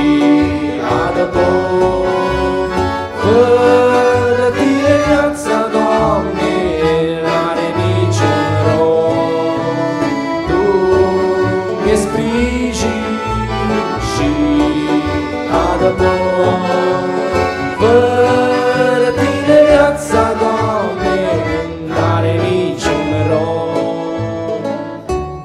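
A live gospel band playing an accordion-led passage with acoustic guitar and keyboard, continuous and loud throughout.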